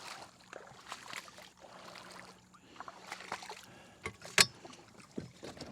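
Scattered knocks and clatter of Freedom Launcher landing gear being lowered on one side of a Nucanoe Frontier 12 kayak, with one sharp knock about four seconds in.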